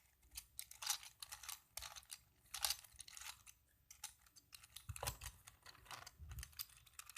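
Plastic 5x5 Rubik's cube layers being turned by hand, giving irregular clicks and clacks.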